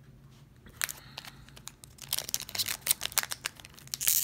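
Foil wrapper of a 2020-21 Upper Deck Artifacts hockey card pack crinkling in the hands as it is gripped for opening. The crinkles start about a second in and grow denser, loudest near the end.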